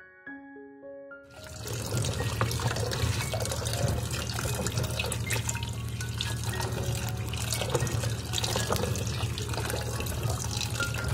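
Tap water running into a plastic basin full of feijoas as a hand swishes the fruit around to rinse it, a steady splashing rush that starts about a second and a half in. Piano music plays before the water starts.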